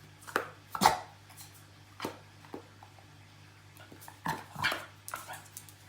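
A dog making a run of short vocal sounds in two clusters, the loudest about a second in, typical of a dog asking for a treat.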